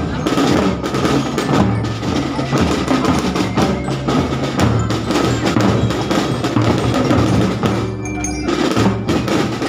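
A marching band's drums playing a steady parade beat, with ringing bell notes over the strikes.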